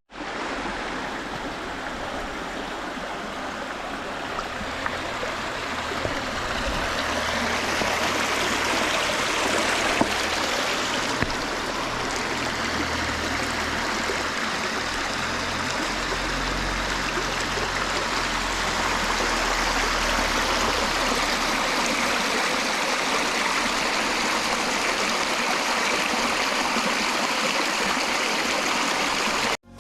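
Valley stream water rushing steadily.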